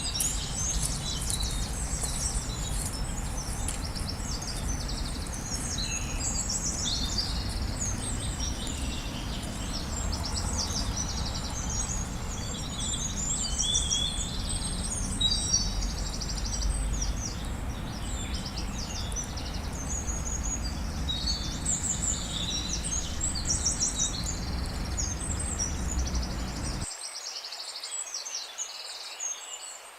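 A chorus of small songbirds chirping and trilling continuously, several overlapping, over a low rumbling background noise that cuts off abruptly near the end.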